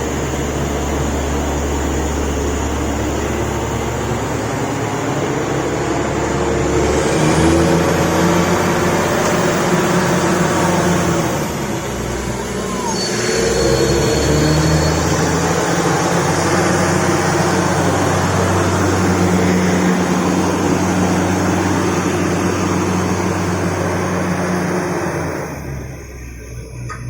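Truck-mounted borewell drilling rig running loud and steady under its engine and air compressor, the engine note shifting a few times. It dips briefly about halfway through and drops off sharply near the end.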